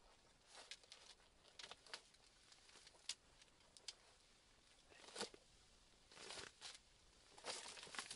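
Faint scattered light clicks and brief rustles as a folding camp table's metal frame is handled and set up, with the rustle of a padded winter suit.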